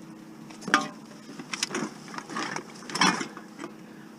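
Glass bottles knocking and clinking together as they are handled, a handful of separate clinks with the sharpest about a second in.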